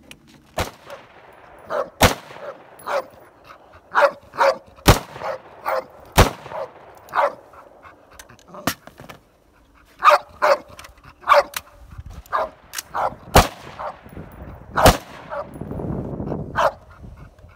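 Semi-automatic AR-15-style rifle firing 5.56 rounds, single shots a second or two apart, with a dog barking repeatedly between the shots.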